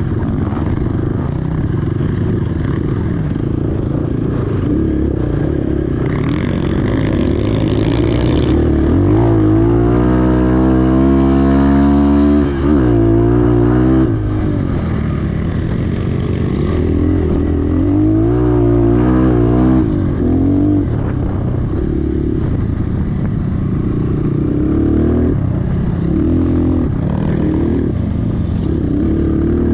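Enduro motorcycle engine running under way, revving up and down. About a third of the way in there is a long climbing rev that drops off sharply, as at a gear change, with shorter rises and falls later on.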